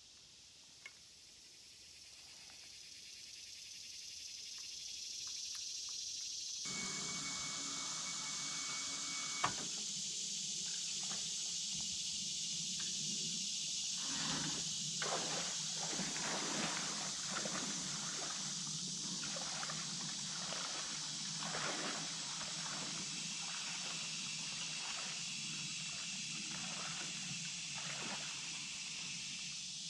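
Water splashing in uneven strokes, about one or two a second from about halfway in, as a person in waders walks through shallow creek water. A steady high hiss runs under it.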